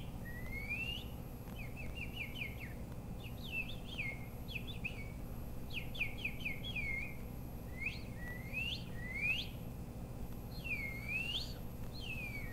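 A long series of bird-like whistled calls: swooping rising and falling chirps, with quick runs of short down-slurred notes about two, four and six seconds in.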